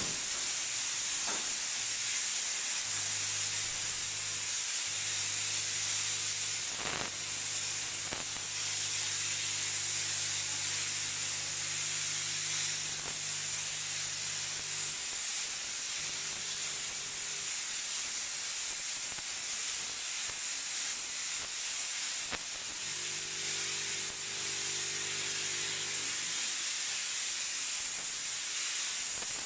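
Steam sanitizing machine jetting 180 °C steam from its hand nozzle, a steady high hiss. A low hum from the machine cuts in and out several times.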